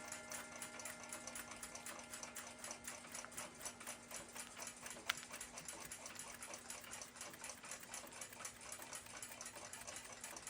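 Seikosha ship's clock movement with its balance wheel still fitted, ticking fast and evenly, several beats a second. One sharper click comes about halfway through.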